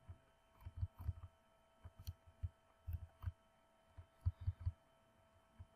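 Faint, irregular low thuds with light clicks, in small groups, from a computer mouse being handled and its wheel scrolled on a desk, over a faint steady hum.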